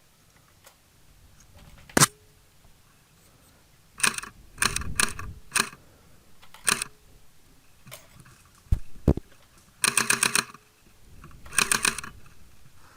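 Airsoft gun firing: a single sharp shot about two seconds in, then several short rattling bursts of rapid clicking shots.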